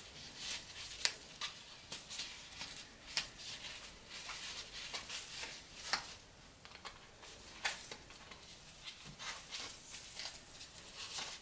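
Soft handling noise as a potted spider plant is worked into a jersey-fabric macrame hanger: light rustling of leaves and fabric with small scattered ticks and taps at irregular intervals.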